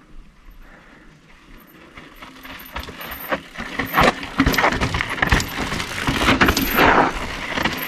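Mountain bike ridden over a rocky trail feature, coming closer: tyres crunching and clattering on rock and dirt, with sharp knocks of wheels and frame. The sound builds from about two seconds in and is loudest in the last few seconds.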